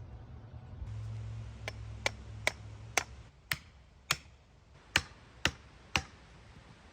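A hammer striking wood, nine sharp separate blows about two a second, as when driving wooden stakes to level a form. A low steady hum runs underneath and stops about three seconds in.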